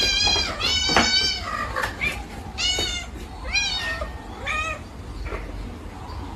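Domestic cat meowing loudly and repeatedly, about five meows in the first five seconds, the later ones shorter and fainter.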